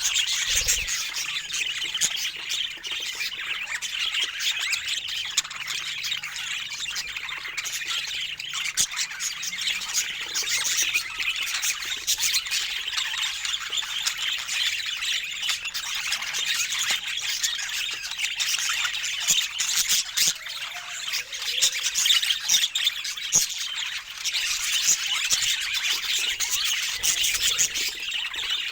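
Budgerigars chattering and squawking without a break, many short scratchy calls and clicks overlapping.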